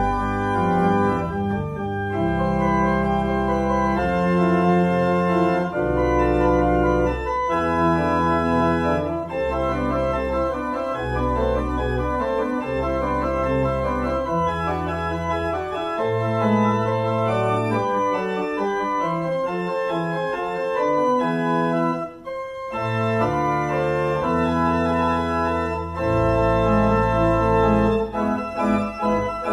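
Pipe organ playing a piece: a moving upper line over sustained bass notes that change every second or two, with a brief break about 22 seconds in.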